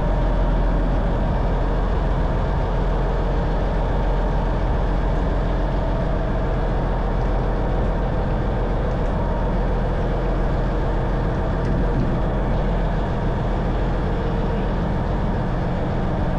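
Faluwa boat's diesel engine running steadily with a deep, even hum.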